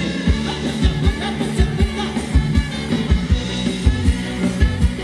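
Live Thai ramwong band music with a steady, quick drum beat and a singer's voice over it.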